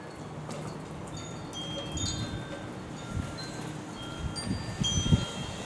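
Wind chimes ringing in gusty storm wind, scattered clear high notes at several pitches. Wind gusts rumble on the microphone, strongest about four and a half to five and a half seconds in.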